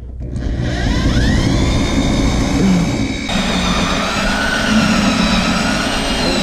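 Cordless drill drilling out steel rivets, its motor whine rising as it comes up to speed in the first two seconds, then running steadily. About three seconds in the sound changes abruptly to another steady run of drilling.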